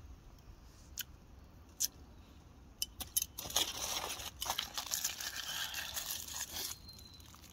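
Aluminium foil crinkling as it is handled and crumpled, a dense run of crackles from about three and a half seconds in until near the end, with a few separate sharp clicks before it.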